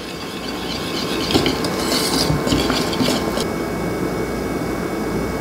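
Wire whisk stirring thick spaetzle batter of egg, flour and milk in a ceramic bowl: steady, continuous scraping and sloshing against the bowl.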